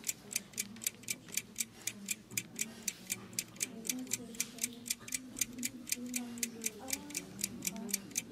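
Rapid, perfectly even clock ticking, about four ticks a second, with faint voices low underneath.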